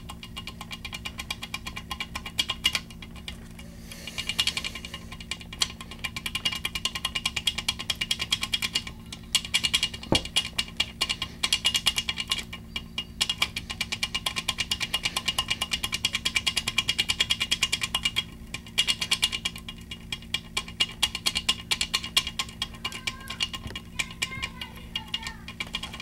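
Foil-wrapped key blank being wiggled up and down under turning tension in a Kwikset pin-tumbler lock: rapid, continuous metallic clicking and rattling, with a few short pauses. This is foil impressioning, the pins pressing their depths into the foil.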